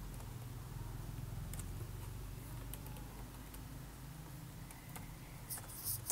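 Keys of an HP ProBook 450 G3 laptop keyboard clicking faintly in short runs as a command and a string of digits are typed, most densely near the end, over a steady low hum.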